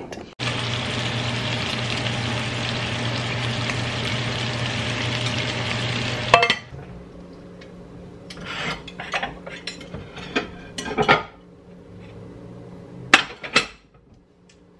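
Fish frying in a pan, sizzling steadily with a low hum under it for about six seconds, then cutting off abruptly. After that come scattered clinks and knocks of dishes as plates are taken from a kitchen cabinet.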